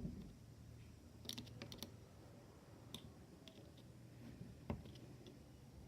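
Faint light clicks and taps of a screwdriver working at the screws and tongue washers of a Keihin carburetor: a quick cluster of clicks about a second in, a few single clicks after, and a duller knock near the end.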